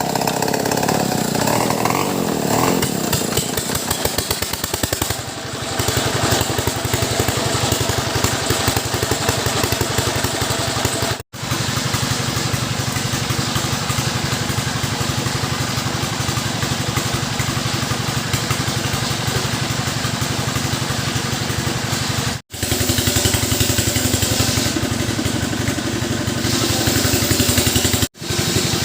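STIHL chainsaw engine running. For the first few seconds its pitch rises and falls, then it settles into a steady, even run, cut off abruptly three times.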